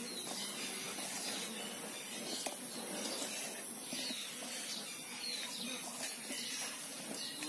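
Hand mixing spice-coated raw mango pieces in a steel bowl, a soft steady rustle with an occasional click against the bowl. Faint bird chirps.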